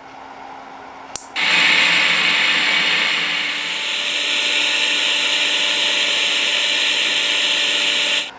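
A click, then a loud, steady hiss of static played through the speakers by the amplifier board, which stops abruptly near the end; typical of the board's Bluetooth module being switched to another input mode with no signal.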